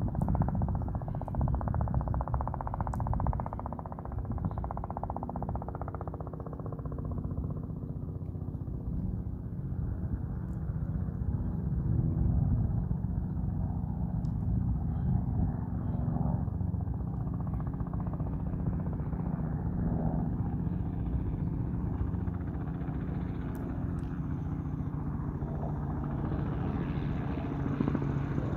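Distant helicopter in flight, its engine and rotors making a steady drone with a low rumble. The drone grows stronger and brighter near the end as the helicopter comes closer.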